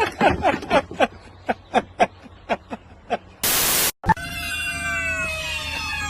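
A cat's long, drawn-out meow that slowly falls in pitch, starting about two-thirds of the way through. It comes just after a half-second burst of loud static hiss and a moment of silence. Before that there is a run of short, sharp chirp-like sounds.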